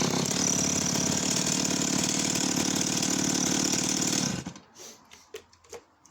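Stihl 028AV WoodBoss two-stroke chainsaw running steadily, then cut off abruptly about four seconds in, followed by a few light clicks and knocks.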